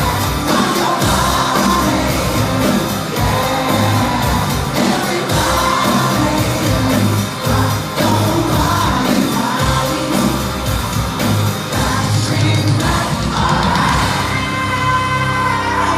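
Loud live pop-rock music: a full band with a steady driving beat and a lead singer, with yells over it.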